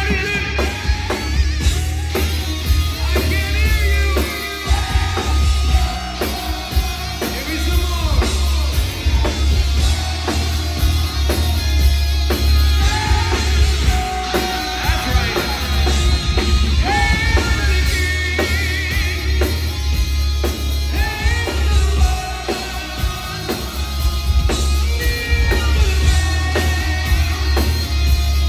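Heavy metal band playing live: a man singing over electric guitars and a drum kit, with a strong low bass underneath.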